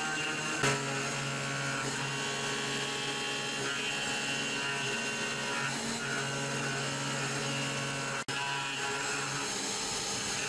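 CNC machining center milling a metal mold core with a long end mill in a shrink-fit holder, a steady whine of spindle and cutting. There is a click about half a second in, and the sound drops out for an instant about eight seconds in.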